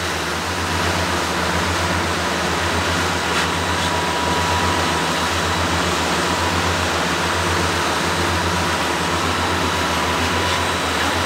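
Fishing boat's engine running steadily underway: a low, evenly pulsing drone with a thin steady whine above it, under a constant hiss of wind and water.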